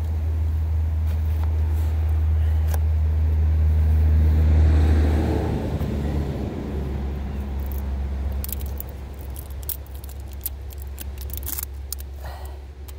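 A motor vehicle's low engine rumble that builds to a peak about four to five seconds in, then drops away to a lower steady level. Light clicks and rattles come near the end.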